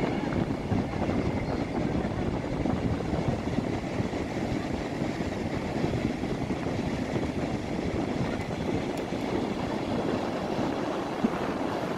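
Atlantic surf breaking offshore in a steady rush, mixed with wind buffeting the microphone.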